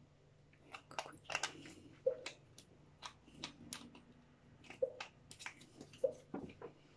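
Faint scattered clicks and a few soft taps of a small plastic eye-cream tube and other skincare containers being handled and set down.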